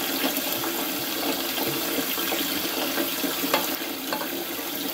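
Sake pouring in a steady stream from a glass bottle into a metal pot of live moroko fish, splashing continuously with small spatters throughout.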